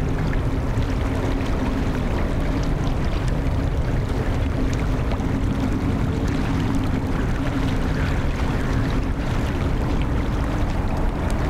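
Steady roar of airliner jet engines mixed with wind rumbling on the microphone, with a constant low hum running under it.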